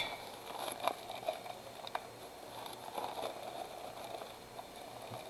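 Quiet handling of small glass jars and dried herbs: a few faint light taps in the first two seconds over a low background hiss.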